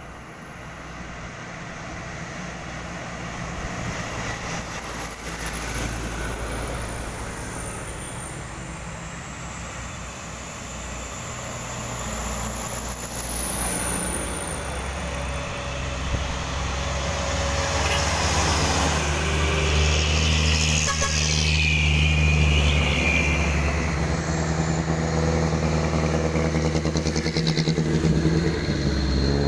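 Diesel buses and a truck driving past one after another, their engines getting louder as they come close. A high whine rises and falls in the middle; the title likens the buses' sound to an airplane.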